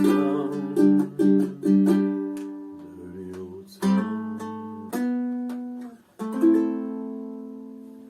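Ukulele chords strummed, a few quick strums and then slower single chords, the final chord left ringing and fading out to end the song.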